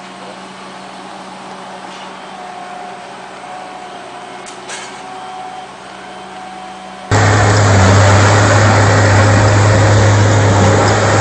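A heavy machine's engine running steadily at a low hum, then about seven seconds in a sudden jump to a much louder engine running with a deep low drone.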